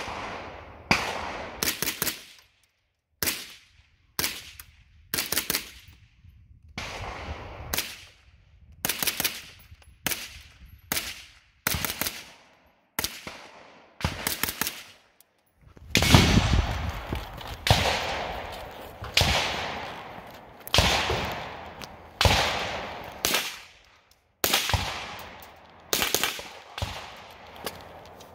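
Rifle shots fired one at a time, about a second apart. From about 16 seconds in they become louder and deeper with a longer trailing boom, as the shooter fires a .308 PTR rifle.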